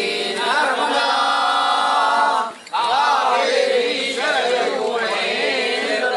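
A group of voices chanting a devotional hymn together in unison, with a short break about two and a half seconds in.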